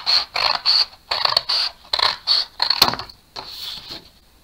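Scissors cutting through thin white card in a run of short, crisp snips, about three a second, stopping about three seconds in.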